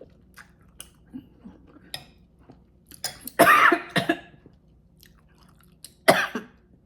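A woman eating noodle soup, with faint small chewing and utensil clicks, then coughing: a loud fit of coughs about three and a half seconds in and another short cough near the end.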